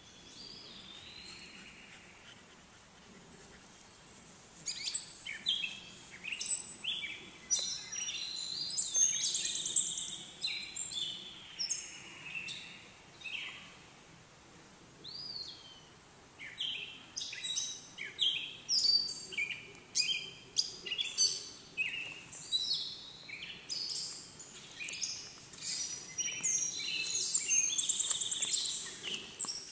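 Songbirds singing in the trees: quick runs of short, high chirps and trills, faint at first, then dense from about five seconds in, with a brief lull midway.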